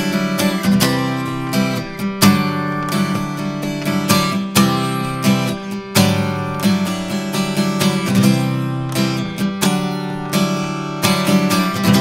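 Acoustic guitar strummed with strong dynamics, loud accented chord strokes with the chords ringing between them, heard as a recording made through a Neve 1073-style microphone preamp.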